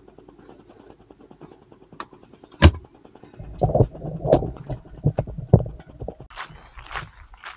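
A single sharp bang, then wind rumbling over the microphone with several clicks and clunks of a camper van's door being handled and shut.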